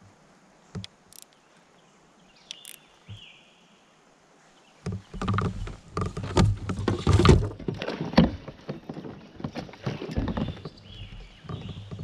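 Knocks, splashes and handling noise around a fishing kayak as an angler fights and reels in a hooked smallmouth bass. It is quiet with a few clicks at first, then a loud, irregular jumble of knocks and splashing from about five seconds in.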